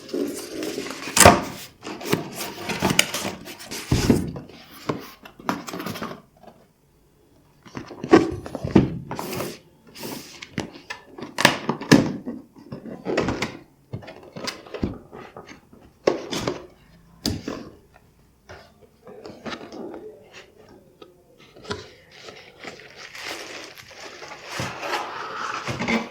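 Handling noise from unboxing a table fan: a run of knocks, thumps, rubbing and scraping of the box and packaging, with a short pause about six seconds in.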